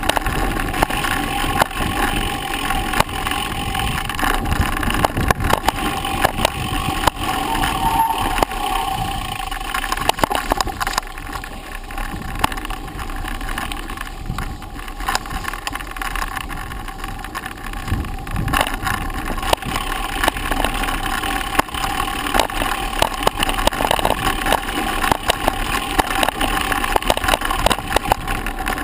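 Bicycle riding over a rough dirt forest track: a constant dense rattling and knocking from the bike and its mounted camera, with tyre noise on the dirt, easing a little midway.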